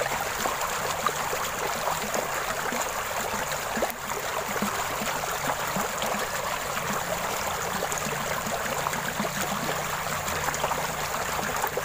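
Shallow stream water rushing steadily past and through a small homemade floating paddle-wheel water turbine.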